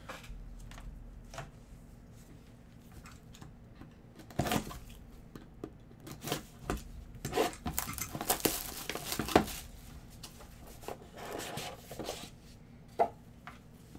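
Plastic shrink wrap on a sealed trading-card box being slit with a box cutter and torn off, crinkling, with cardboard rustling as the box is opened. The tearing comes in a run of short noisy strokes through the middle.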